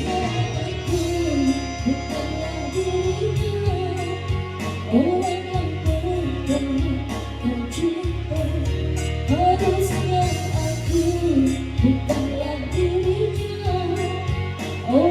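A woman singing a melody over backing music with guitar, bass and a steady beat.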